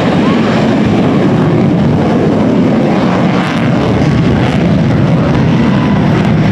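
Loud, steady jet engine noise from an F-35 fighter at high power as it takes off.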